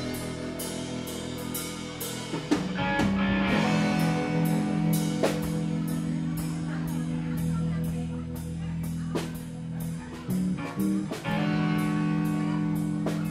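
Live blues-rock band playing an instrumental passage: guitar holding long notes over a drum kit keeping a steady beat.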